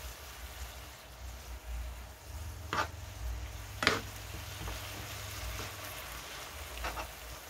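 Spinach and garlic sizzling gently in a non-stick frying pan while being stirred with a spoon, with a few sharp clicks of the spoon against the pan, about three and four seconds in and again near the end.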